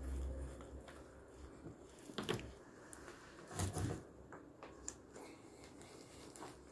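Faint handling noise as a wooden bar with four large plastic water bottles hanging from it is lifted: rustling, with a couple of short soft knocks a little over two seconds in and again near the middle.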